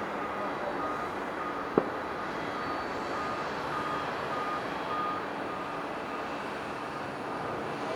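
Steady jet aircraft noise across the airport, with a short beep repeating about twice a second and a single sharp click just under two seconds in.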